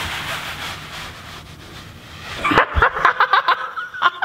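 Rustling of a clip-on lapel microphone against a puppet's fur and clothes as the puppet sinks out of sight. About two and a half seconds in, a quick run of short, high-pitched vocal squeaks from the puppeteer as the puppet comes back up.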